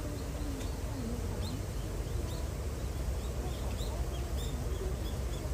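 Small birds chirping, a run of short high chirps that starts about a second and a half in, over a steady low background rumble.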